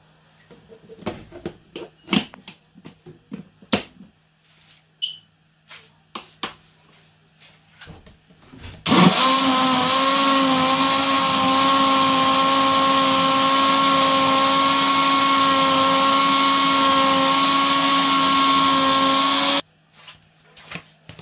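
A few seconds of scattered knocks and clicks, then an electric countertop blender switches on abruptly and runs steadily with a motor whine for about eleven seconds, blending a smoothie, before cutting off suddenly.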